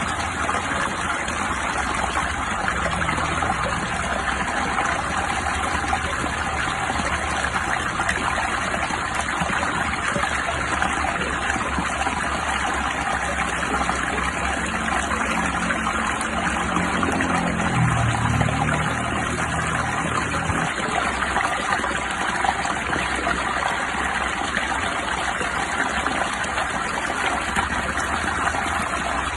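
Steady rain with water trickling and running. For several seconds past the middle, a low hum swells, dips and fades under it.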